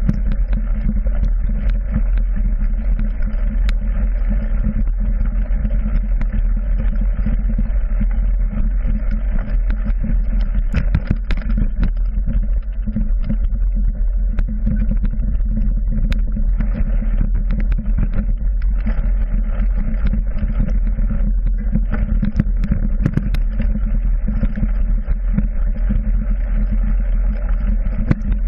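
Mountain bike riding fast over a forest trail, heard through a handlebar-mounted GoPro in its housing: a steady low rumble from the tyres and the ride, with sharp knocks and rattles as the bike hits bumps.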